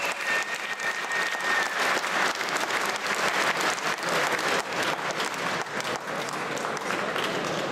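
Crowd applauding, many hands clapping at once, thinning out a little near the end.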